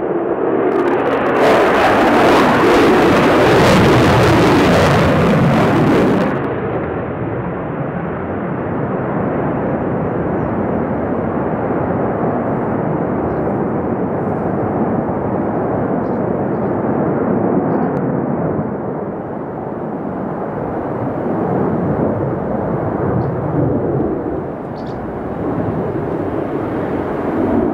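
Sukhoi Su-35 fighter jet's engines heard in flight: a loud, continuous jet noise that is at its loudest and hissiest from about a second in until about six seconds in, then settles into a steadier, duller rush that swells and fades a little as the jet manoeuvres.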